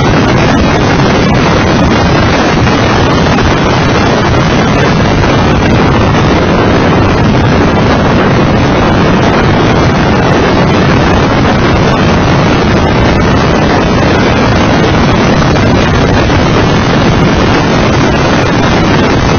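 Heavy, steady wind buffeting on a microphone mounted outside the car at track speed, with the Mitsubishi FTO GPX's engine running underneath it.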